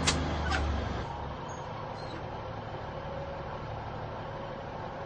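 Diesel multiple unit's engine running as the unit backs away, with a sharp clank right at the start and a lighter one half a second later as the BSI automatic couplers part. About a second in the engine note drops back to a steady idle.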